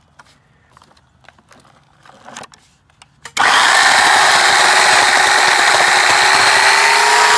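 Corded electric chainsaw (Portland 14-inch, 120 V) switched on about three and a half seconds in and run at full speed, cutting into a dead pecan limb, with a steady motor whine that rises slightly in pitch near the end. A few light handling clicks come before it starts.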